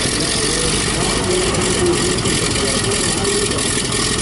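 Vintage aircraft's radial engine idling steadily.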